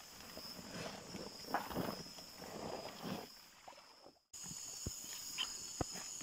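Footsteps crunching and rustling through wet leaf litter and brush, loudest in the first three seconds, over a steady high-pitched chirring of night insects such as crickets. The sound cuts out briefly about four seconds in, and afterwards only a few light snaps and clicks are heard over the insects.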